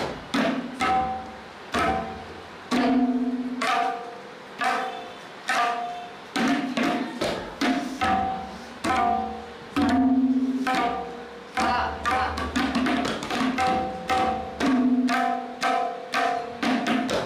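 Background music of tabla playing in a steady rhythm: ringing pitched strokes alternating with deep bass strokes.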